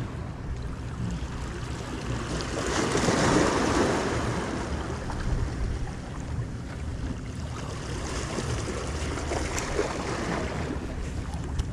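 Small waves washing and splashing against the boulders of a rocky shoreline, with some wind on the microphone; one wash swells louder about three seconds in.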